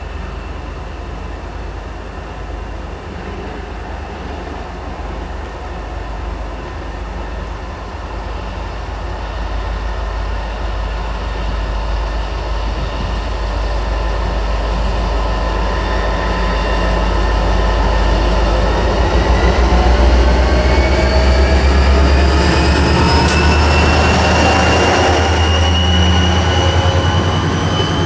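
Nohab-built, GM-engined DSB class MZ diesel-electric locomotive approaching and passing, hauling three unpowered IC4 trainsets: a deep diesel engine drone growing steadily louder, then the rolling train with several whining tones rising in pitch over the last ten seconds or so.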